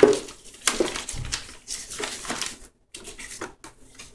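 A few irregular knocks and clatters of metal kitchenware being handled, from the stainless steel meat grinder's parts and metal bowls; the grinder's motor is not running.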